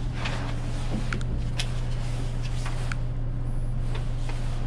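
Steady low hum inside a lift car, with a few light clicks and the rustle of handled paper.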